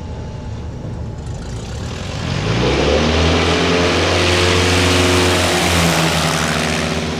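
Pitts S-1S biplane's propeller engine running at low power, then throttled up about two and a half seconds in. The engine note rises and the engine holds full power with loud rushing wind, as the plane climbs away after a landing flared too high.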